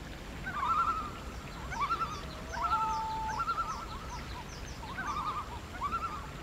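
A series of wavering, warbling animal calls, repeated in several short groups, with faint high chirps from birds above them.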